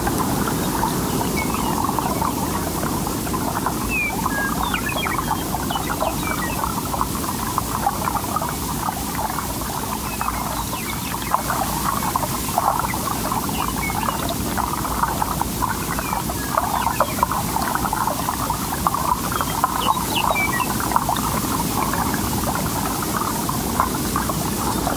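Outdoor rice-paddy field ambience: a steady, dense crackling chatter with short bird chirps scattered over it, clustering about four to six seconds in and again near the end, over a low background rumble.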